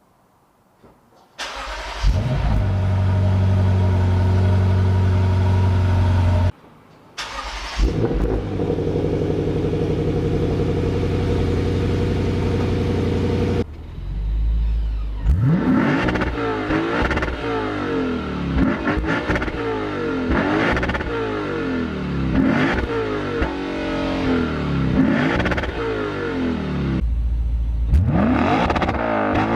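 Lexus IS500's 5.0-litre V8 exhaust idling steadily in two takes split by a brief break, then blipped over and over, each rev climbing and dropping back about every one and a half to two seconds.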